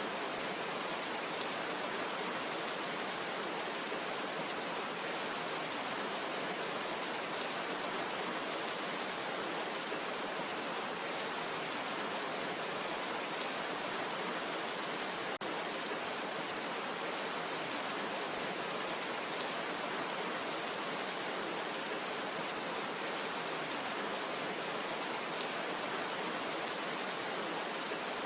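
Steady rainfall, an even hiss of falling rain with fine patter of drops.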